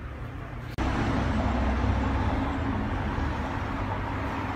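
Steady traffic noise: a low rumble and hiss of passing vehicles, jumping louder at an abrupt cut just under a second in.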